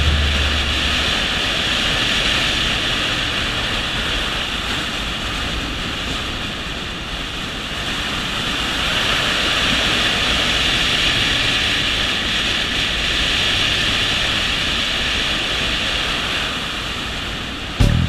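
Wind rushing over the microphone of a camera mounted on a motorcycle riding at road speed: a steady hiss that eases slightly partway through and swells again.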